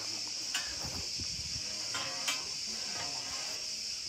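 Steady high-pitched drone of an insect chorus, with a couple of sharp clicks, one about half a second in and one a little past two seconds.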